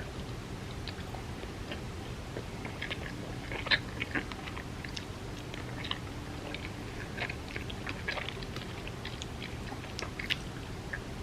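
Close-miked chewing and biting: irregular wet mouth clicks and soft crackles, with a couple of louder smacks about four seconds in and near the end.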